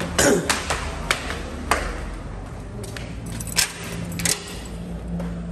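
Footsteps and a handful of sharp metallic clicks and clanks from a barred steel pedestrian gate being handled. The loudest clank comes just after the start and another about three and a half seconds in.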